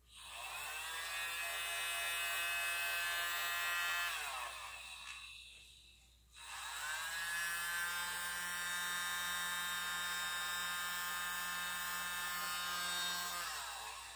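Westminster World's Smallest Blower, a miniature USB-powered blower, whining steadily as its little fan motor runs. About four seconds in it is switched off and winds down in pitch. A couple of seconds later it is switched on again, spins up and runs steadily before winding down again near the end.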